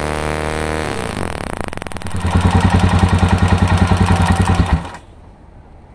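Background music fades out about a second in. Then a motorcycle engine is turned over with its spark plug out for a spark test, a loud, fast, even pulsing that stops suddenly near the end.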